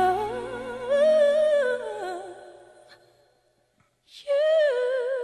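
Solo female voice singing slow held notes with wide vibrato, nearly unaccompanied. The voice fades out about two seconds in, leaving a second or so of near silence, then a breath and a new sustained note with vibrato.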